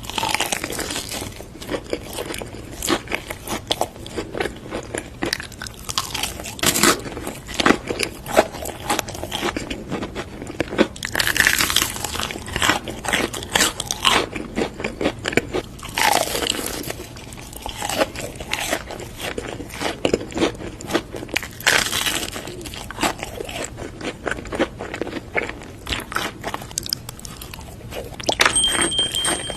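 Close-miked eating of crunchy food: loud crunchy bites every few seconds, with crackly chewing in between.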